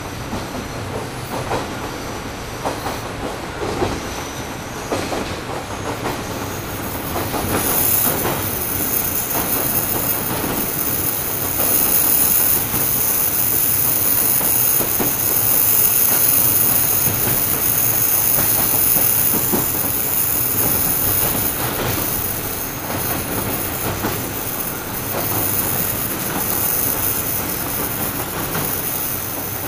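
Cabin running noise of a KiHa 38 diesel railcar, heard from just above its DMF13HS diesel engine: steady engine and running noise with the click of wheels over rail joints. About seven seconds in, a high steady whine joins and the noise grows louder.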